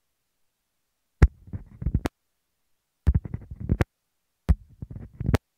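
Shure SV100 handheld dynamic microphone's on-off switch flicked softly on and off three times, heard through the mic itself. Each time there is a click, under a second of faint handling rustle, then another click, and the sound cuts to dead silence as the mic is switched off.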